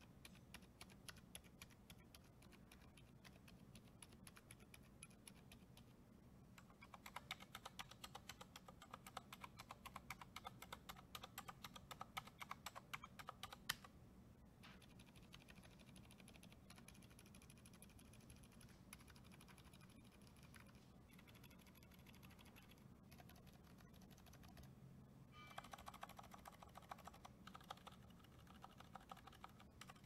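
Typing on a mechanical keyboard fitted with silent tactile switches: quiet, muted keystrokes, sparse at first, then a faster, louder run of typing, a lull with lighter taps, and another quick run near the end.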